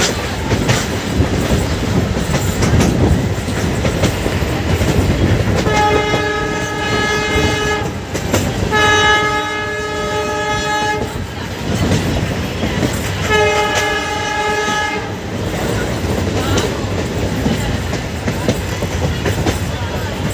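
Passenger train running with a steady rumble and clatter of wheels on the rails, heard from the open coach door. About six seconds in, the WDP4D diesel locomotive's horn sounds three blasts of about two seconds each, the first two close together and the third after a short gap.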